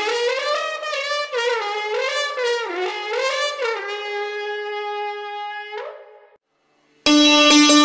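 Trembitas and a horn sounding a Hutsul signal call for the procession to the mountain pastures: short melodic phrases with sliding pitch, then a long held note that flips upward and stops about six seconds in. After a brief silence, tsymbaly (hammered dulcimer) music starts near the end.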